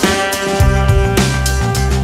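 Background music with a steady drum beat, a deep bass line and sustained instrument notes.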